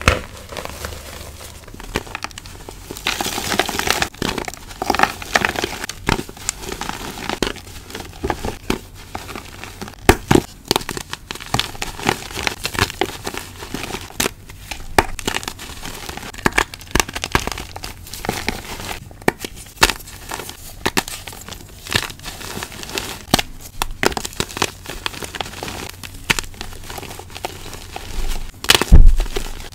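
Blocks of gym chalk being squeezed and crushed by hand, crumbling into a powdery pile with dense, irregular dry crunching and crackling. A heavier, louder crunch comes near the end.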